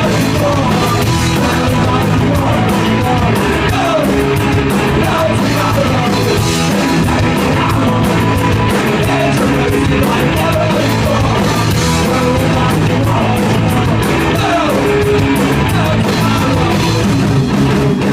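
Punk rock band playing live: loud electric guitars, bass and drums with shouted, yelled singing over them.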